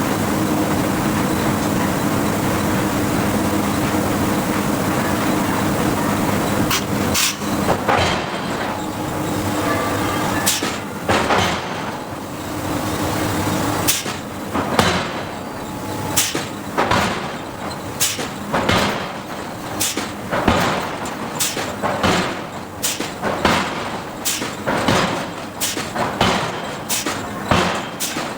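Hydraulic forging hammer: a steady machinery drone, then a series of blows on steel starting about a quarter of the way in. The blows are scattered at first, then settle into an even run of about one blow a second.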